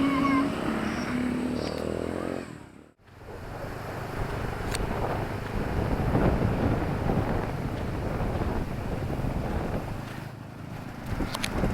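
Street traffic: a vehicle engine hums steadily at first, the sound drops out almost completely for a moment about three seconds in, then a broad rush of passing traffic builds and swells through the middle, with a few sharp ticks.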